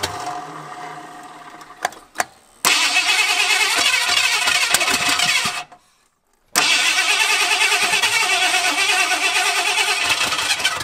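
Mercruiser 302 small-block Ford V8 being cranked over by its starter in two long bursts, about three and four seconds, with a short pause between. A couple of clicks come before the first burst.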